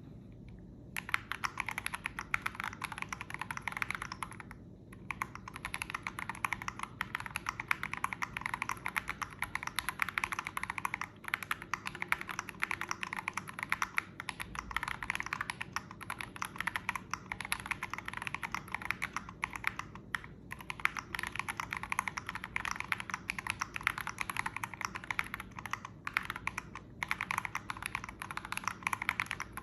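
Steady, fast typing on a SamS46 custom mechanical keyboard with tactile Holy Panda switches and Signature Plastics SA-profile keycaps, starting about a second in, with a few brief pauses.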